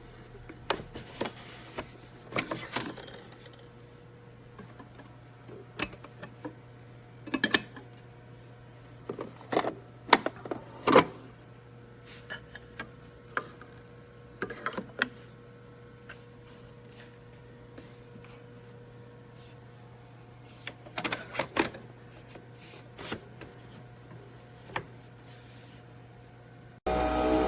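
Scattered clicks and knocks in small clusters, as of objects being handled, over a faint steady hum. Music starts abruptly near the end.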